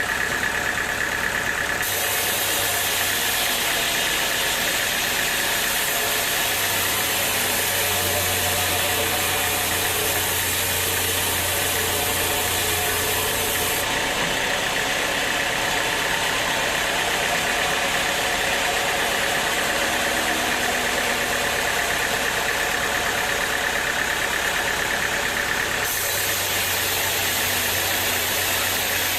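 Sawmill machinery running steadily, a dense mechanical noise with a steady whine. The high hiss brightens abruptly a couple of seconds in, dulls about halfway, and brightens again near the end.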